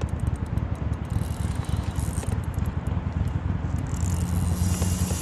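Wind buffeting the microphone: a loud, fluttering low rumble, with faint light clicks over it.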